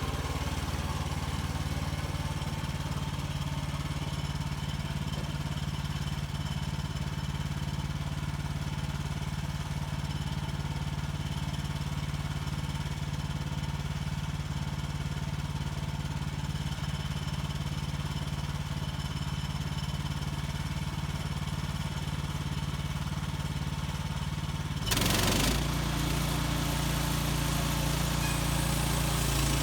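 Small gas engine of a portable bandsaw sawmill running steadily. About 25 seconds in, a short noisy burst comes, and then the engine note changes and gets a little louder.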